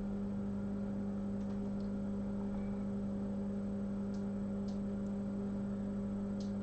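Steady electrical hum from the repair bench equipment, with a few faint ticks about a second and a half in, twice around four seconds in and once near the end.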